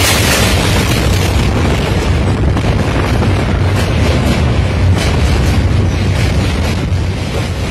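Loud, steady rumble and clatter of a train running over a steel truss bridge, heard from aboard, with wheel clicks through it. A train passing the other way on the next track is just clearing in the first half-second, its hiss fading out.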